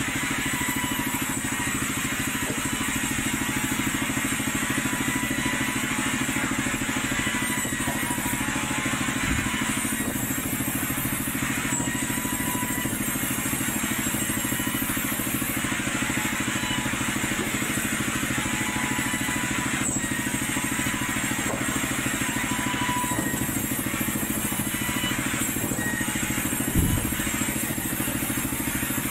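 Sawmill band saws and their drive machinery running steadily, a continuous mechanical drone with a steady whine. A single knock near the end.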